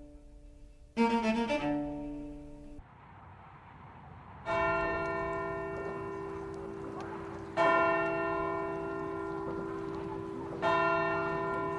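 A short phrase of string music cuts off abruptly. Then a church bell tolls slowly, three strokes about three seconds apart, each ringing on as it fades.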